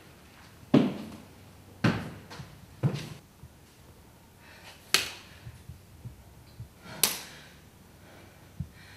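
Scattered knocks and clicks in a room: three dull thumps about a second apart, then two sharp clicks about two seconds apart, with a few faint ticks between.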